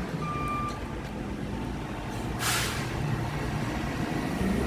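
Mack McNeilus front-loader garbage truck's diesel engine running with a steady low rumble, and a short sharp air-brake hiss about halfway through. A brief beep sounds near the start.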